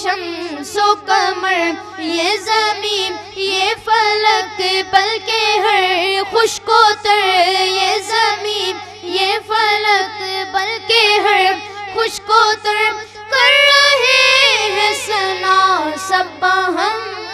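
Young boys singing a naat (Islamic devotional song) into microphones, unaccompanied, with a wavering ornamented melody over a steady low hum. About thirteen seconds in, the melody moves up to higher, longer-held notes.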